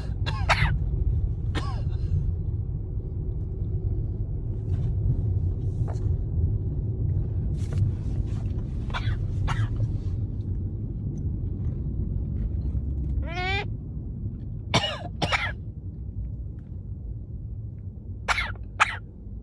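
Repeated short fake coughs, mostly in quick pairs, over a steady low rumble. About two-thirds of the way through comes one rising, pitched call.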